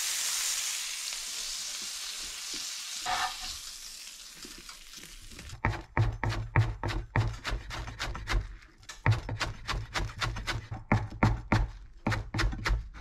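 Butter and broccolini sizzling in a sauté pan, fading over the first few seconds. Then a Wüsthof chef's knife rapidly chops chives on a plastic cutting board: steady knocks of the blade on the board, about three a second.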